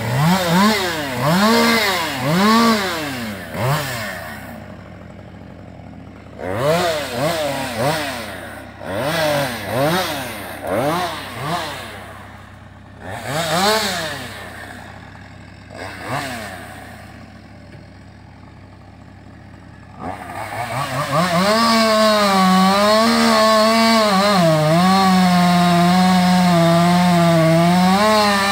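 Husqvarna 550 XP two-stroke chainsaw revved in repeated short throttle blips, each rising and falling in pitch, dropping back to idle between them. About three-quarters of the way through it is held at full throttle, its pitch dipping and recovering as it cuts under load.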